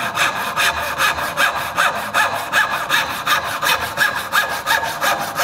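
Brass-backed joinery saw (backsaw) ripping down into the end grain of a wooden block, in rapid, even strokes at a steady rhythm.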